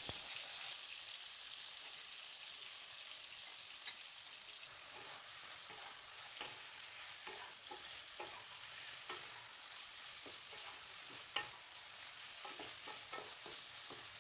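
Chicken pieces sizzling as they fry in butter in a kadai, with scattered clicks and scrapes of a wooden spatula stirring and turning them, more frequent in the second half.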